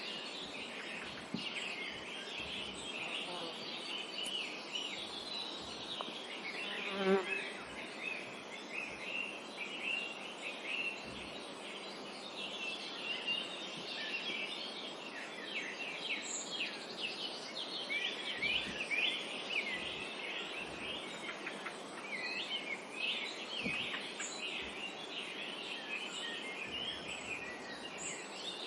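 A chorus of many small birds chirping and singing at once, with overlapping short high chirps and trills. A brief, louder, lower-pitched sound stands out about seven seconds in.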